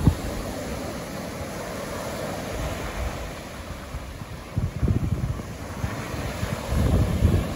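Small waves breaking and washing up a sandy beach as a steady surf wash, with gusts of wind buffeting the microphone about halfway through and again near the end.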